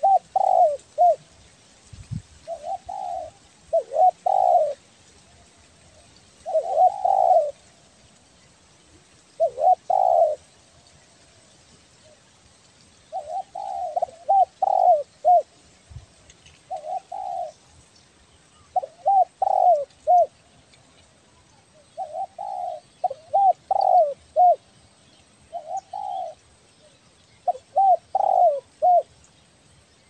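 Spotted dove cooing: short phrases of two to four coos, repeated every two or three seconds.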